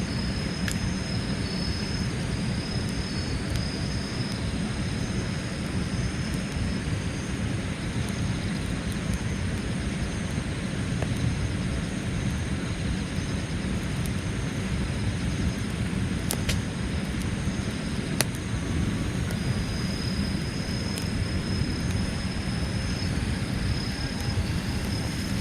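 Wood campfire burning in a Coleman Fire Disc fire pit as the flames catch the thicker logs, giving a few sharp crackles, over a steady low rumble of wind on the microphone.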